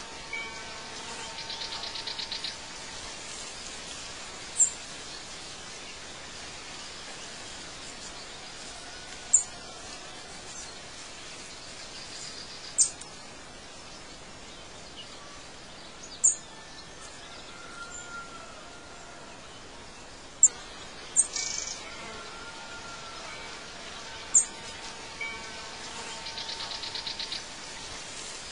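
Night nature ambience: short, sharp, very high chirps every few seconds over a steady hiss, with a buzzing trill of about a second and a half near the start and again near the end.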